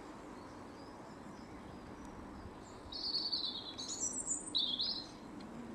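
A songbird singing: a quick run of three or four short, high phrases starting about halfway through, over faint steady outdoor background noise.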